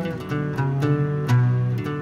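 Iranian orchestral music: plucked string instruments play a quick run of notes over held low notes.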